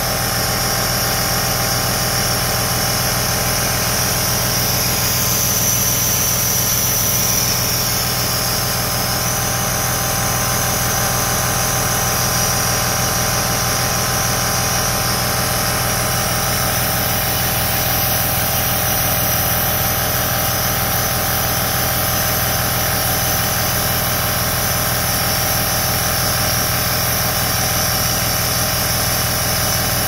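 Compressor nebulizer running steadily, a continuous motor hum with an even hiss of air, while it drives medication mist into a nebulizer cup for a cat's aerosol treatment.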